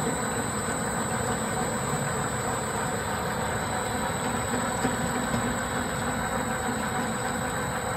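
A PVC spiral suction hose extrusion line running: a steady, even machine noise with a thin, high, constant whine.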